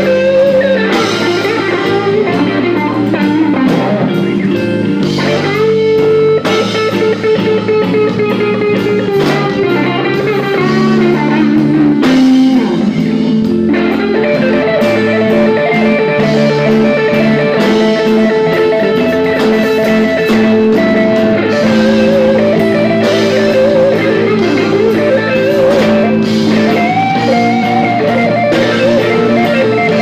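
Live blues band: an electric guitar plays a lead line with bent, sustained notes over the band, with drums behind it.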